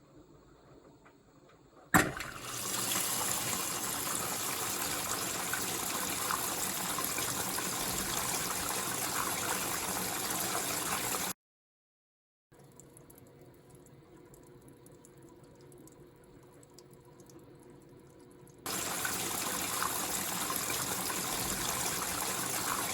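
Water rushing into a Panasonic drum washing machine through its replaced water inlet valve, starting abruptly with a click about two seconds in. It breaks off in the middle, comes back quieter, then loud again near the end. The steady inflow shows the valve now feeds water, curing the 'no water' fault (error U14).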